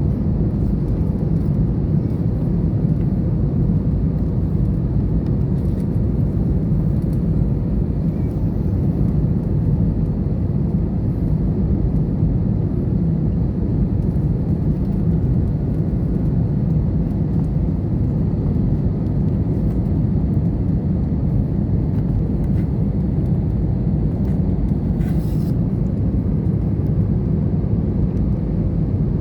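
Airliner cabin noise: the steady rumble of the jet engines and rushing air heard from inside the passenger cabin.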